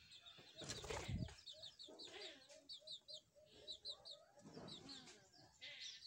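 Caged small parrots chirping faintly in short, high, repeated chirps in twos and threes, with some lower chatter. There is a short rustle about a second in.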